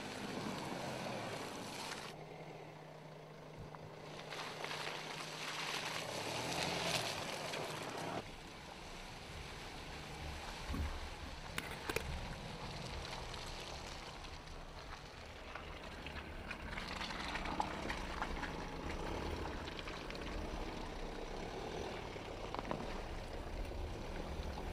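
Mercedes-Benz GLK SUV driving off-road: its engine running as it comes along a dirt track, then, about a third of the way in, a heavier low rumble of the tyres working through muddy ruts and puddles, with water sloshing and a few sharp knocks from the wheel and suspension.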